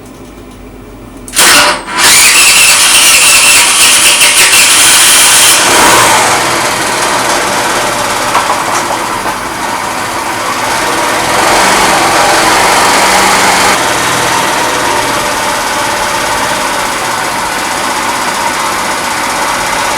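Fada Wind scooter engine starting about a second and a half in: a short first burst, then it catches and runs at high revs for a few seconds before dropping to a lower, steady speed. It runs evenly, working well after the new spark plug and air filter.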